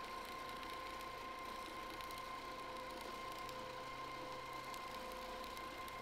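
Sewing machine stitching free-motion quilting lines, its motor running at a steady speed with a constant high whine.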